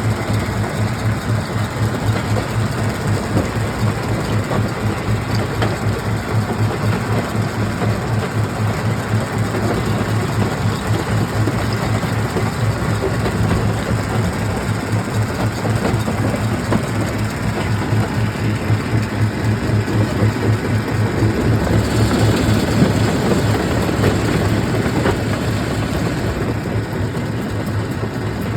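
Stone-crushing machinery running: a heavy, continuous mechanical rumble with a fast, even pulse, swelling louder and harsher for a few seconds about two-thirds of the way through.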